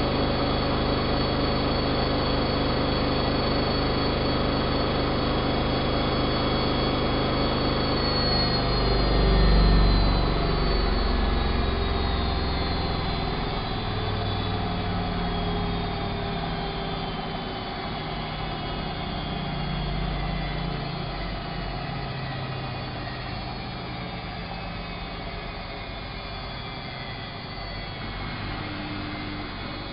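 Elin WM26AAA washing machine (built by Antonio Merloni) ending a high-speed spin: a steady motor whine, then about a quarter of the way in the pitch starts falling as the drum coasts down. A brief low rumble, the loudest moment, comes as the slowing drum passes through resonance, and the sound then gradually fades.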